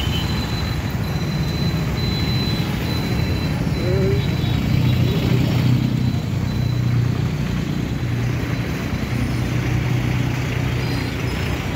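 Steady low vehicle rumble with street noise, swelling a little in the middle.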